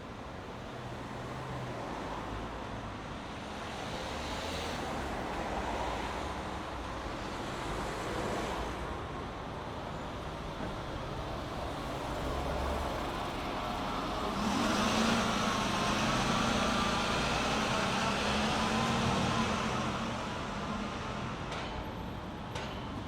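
City street traffic: cars passing with a steady hum of road noise that swells and fades. A louder, heavier vehicle's engine passes near the end, with a low drone.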